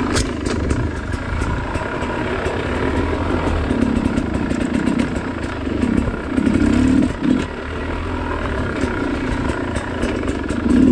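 Dirt bike engine running under changing throttle, surging louder several times: about four seconds in, again around six to seven seconds, and at the very end. Frequent short clicks and knocks sound over the engine.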